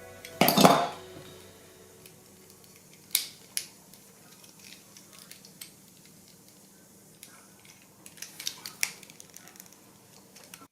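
Small plastic pieces of a disassembled 4x4 Rubik's cube clattering and clicking as they are handled and set down: a loud clatter about half a second in, then scattered sharp clicks, with a cluster of them near the end.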